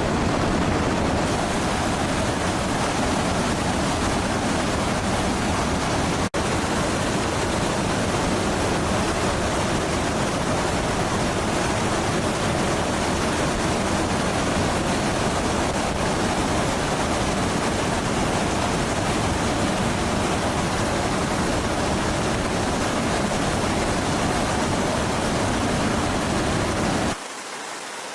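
Steady, loud rushing noise of jet aircraft and airflow, with no distinct tone. It cuts out for an instant about six seconds in and drops away abruptly near the end.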